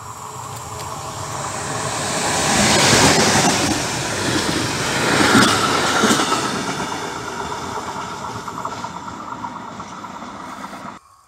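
DB Cargo E.483 electric locomotive (a Bombardier TRAXX) passing at speed with a short train of stake flat wagons loaded with timber. The train swells to its loudest about three and five seconds in, then fades away as the wagons roll past, and the sound cuts off suddenly near the end.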